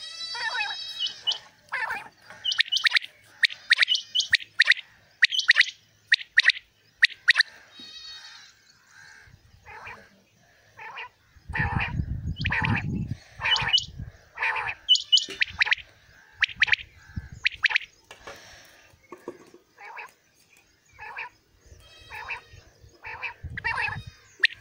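Caged common quails calling over and over, short sharp calls in quick runs that overlap from more than one bird. A low rumble lasts about a second and a half near the middle.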